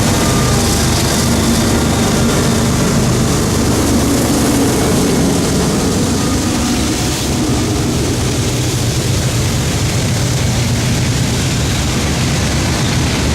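CSX freight train passing close by: its diesel locomotives run loud over a steady heavy rumble.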